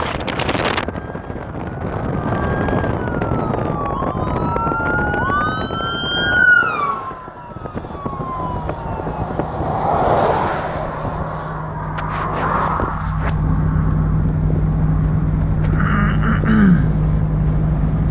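Emergency vehicle siren wailing, its pitch gliding up and down, then dropping away as it passes about six or seven seconds in. After that there is the steady engine hum and road noise of the car the sound is heard from, with a brief horn-like blast near the end.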